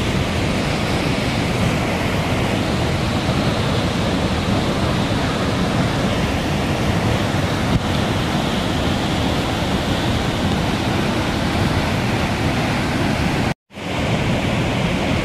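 Muddy, flood-swollen waterfall pouring over a rocky cliff: a loud, steady rush of falling water. It cuts out for a split second near the end.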